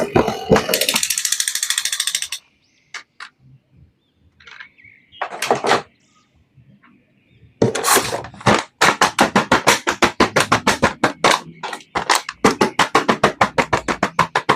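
Rapid sharp clicks and taps, like hard plastic being handled. There is a short noisy rasp about a second in, then a few faint ticks, and from about halfway a quick run of clicks at roughly five a second.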